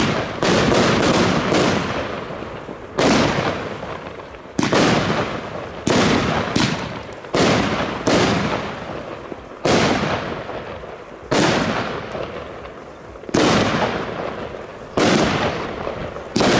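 Blackboxx Pyro-Spektakel Level 1 firework battery firing shot after shot, each a sharp bang that fades out over a second or so. Several shots come in quick succession at the start, then roughly one every second and a half.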